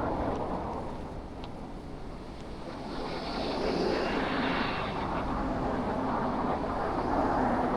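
Street traffic noise: a vehicle passing close by, its sound swelling about three seconds in and staying up.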